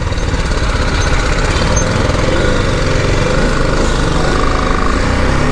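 BMW motorcycle engine running steadily at low speed while the bike creeps through a narrow gap.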